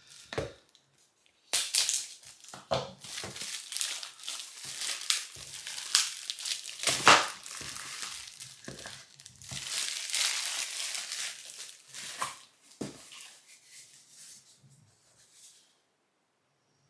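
Hands rummaging through shredded paper packing in a cardboard box, rustling and crinkling in irregular bursts, with one louder crackle about seven seconds in. It dies away over the last few seconds.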